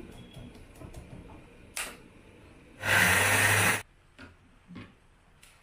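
Electric mixer grinder run in one short pulse of about a second, about three seconds in, starting and stopping abruptly. A brief sharp sound comes shortly before it, and a few light knocks after.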